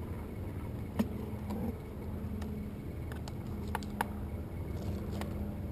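A handful of short sharp clicks and taps as a cable plug is pushed into a video receiver in an FPV ground-station case, over a steady low hum.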